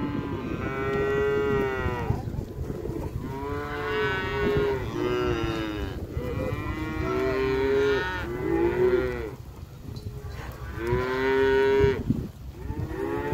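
Freshly weaned Holstein heifer calves bawling, about seven high-pitched calls in a row, some overlapping one another.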